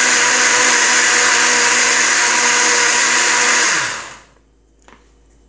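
Countertop blender running at full speed, blending soaked oats and water into oat milk. About four seconds in it is switched off and the motor winds down, its pitch falling, and a faint click follows.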